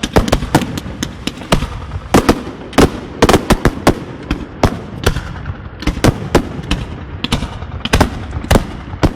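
Fireworks display going off: a rapid, irregular string of loud sharp bangs and crackles, several a second, each with a short rumbling echo.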